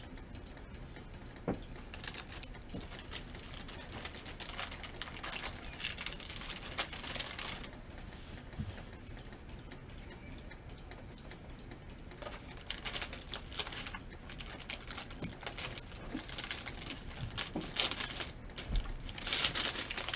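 Clear plastic packaging bag crinkling and rustling in irregular bursts as a folded cross-stitch canvas is slid back into it, loudest near the end.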